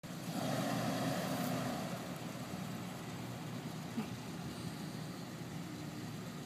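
Jeep Wrangler's engine running at low speed as it crawls over a dirt mound, a little louder for the first two seconds, then steady. A single short knock about four seconds in.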